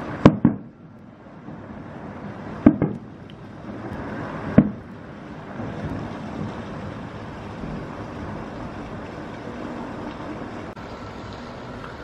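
Aerial fireworks shells bursting: two sharp bangs near the start, two more a couple of seconds later, and a single bang about four and a half seconds in. After that comes a steady rumble of further bursts.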